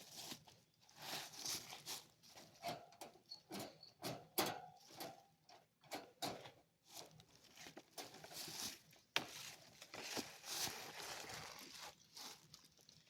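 Irregular rustling and scuffing with scattered small clicks and crackles.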